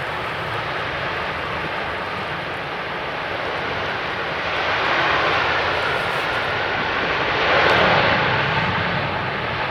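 Airbus A350-1000's twin Rolls-Royce Trent XWB jet engines at takeoff power, a loud, steady jet roar that swells about five seconds in and is loudest about eight seconds in.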